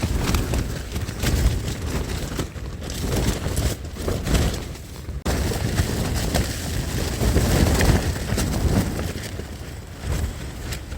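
Strong gusting wind buffeting the microphone with a deep rumble, rising and falling in gusts, with a brief lull about five seconds in.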